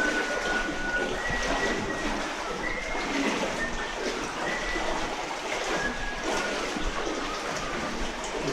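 Footsteps sloshing and splashing through shallow water and mud.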